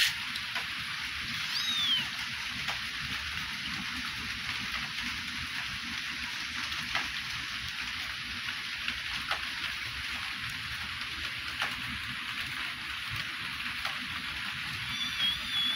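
A young kitten gives a short, high, falling mew about two seconds in and a longer high mew near the end. Under them runs a steady rain-like hiss with a few faint ticks.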